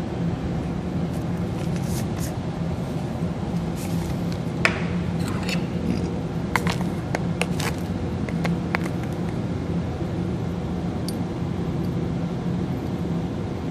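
Steady low background hum, with a scatter of light clicks and ticks about five to nine seconds in as the iron sample is handled and tipped into a test tube of dilute hydrochloric acid.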